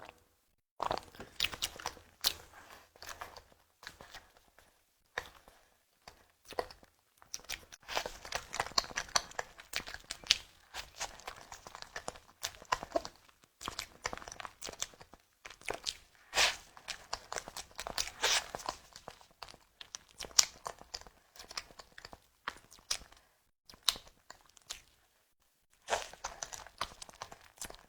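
Close-miked chewing and mouth sounds of someone eating tiger skin dessert. They come in irregular bursts of sharp, clicky noises with short pauses between.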